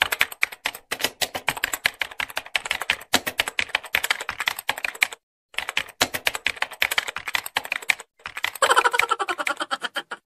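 Keyboard typing sound effect: rapid, continuous key clicks. They break off briefly twice, about five and about eight seconds in, and stop just before the end.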